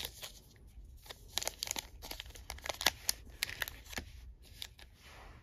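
Foil trading-card pack crinkling in the hands as it is torn open along its sealed top edge, a string of short, irregular crackles.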